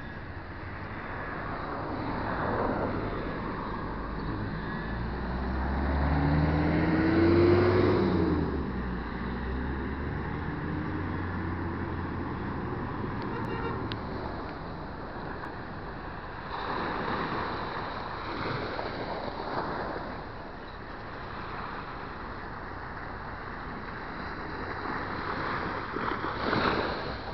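A motor vehicle passing close by, its engine note rising and then falling with a low rumble about six to eight seconds in, over a steady outdoor background noise.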